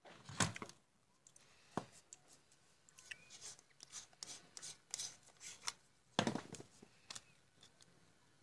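Hard plastic clicking, rubbing and scraping as a compact fluorescent bulb is worked out of a plastic lamp holder and its plastic base housing is pried apart. The sharpest clicks come near the start and about six seconds in.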